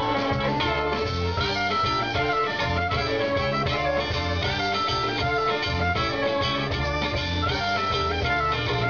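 Live band playing an instrumental passage: guitar strummed with a soprano saxophone playing a melody over it.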